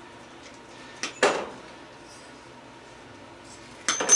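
Two sharp metallic clinks, about a second in and near the end, each a small click followed by a louder clatter with a brief ring: short pieces of aluminum gas line being cut off and dropped.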